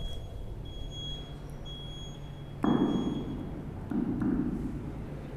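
Two short rustling thumps of microphone handling noise, about two and a half and four seconds in, over a steady low hum of room tone.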